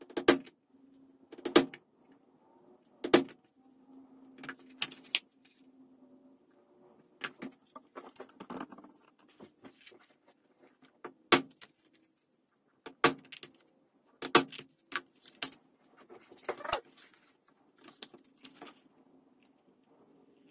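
Wooden mallet striking a hole punch through thick vegetable-tanned leather: sharp knocks about every one and a half seconds at the start, then softer clicks and rustling of hand-stitching with a needle and waxed thread, broken by a few more sharp knocks.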